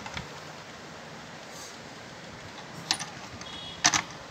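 Toy train models being handled on a wooden shelf: a few sharp clicks and knocks in pairs, two near the start, two about three seconds in, and the loudest two near the end as a hand grips the grey locomotive model.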